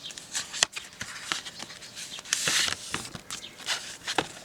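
Paper and cardboard collector's extras being handled: scattered taps and clicks, with a brief rustle of paper or card sliding about two and a half seconds in.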